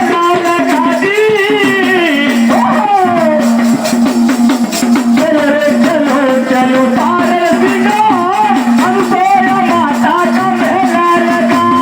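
A Marathi devotional song to Mahadev: a single melodic voice singing over a steady held drone, with percussion keeping an even beat.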